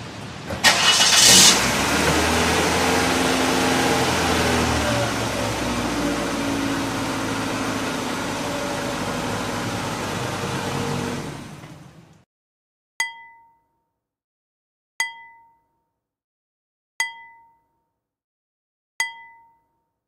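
A car engine with a cylinder 4 misfire (code P0304) starts and runs, then shuts off about twelve seconds in. The misfire is traced to a fuel injector with an open circuit. After it, four short chime tones sound, two seconds apart.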